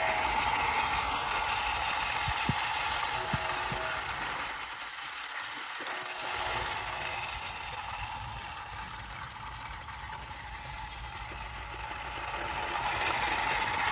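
Hobby-grade RC dump truck's electric drive motor and gears whirring as it drives over asphalt, with a faint steady whine; it fades as the truck moves away and grows louder again as it comes back toward the end.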